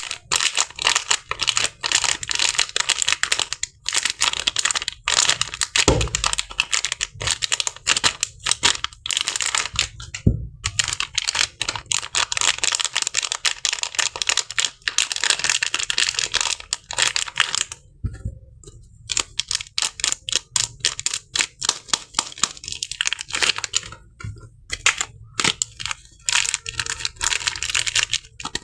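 Soap packaging being unwrapped by hand: crisp paper crinkling and tearing in a dense run of crackles, with short pauses and a few soft thumps.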